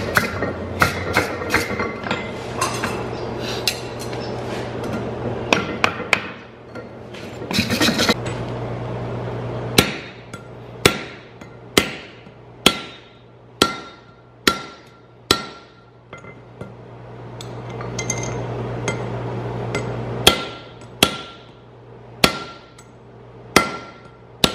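Blacksmith's hammer striking a hot forge-welded steel ring on the anvil: a quick run of blows early, then after a pause single blows about one a second on a hand-held set tool, each with a short metallic ring. A steady low hum runs underneath.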